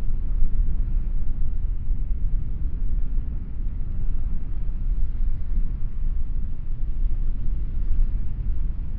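Breeze buffeting the microphone: a steady, fluttering low rumble with no other distinct sound.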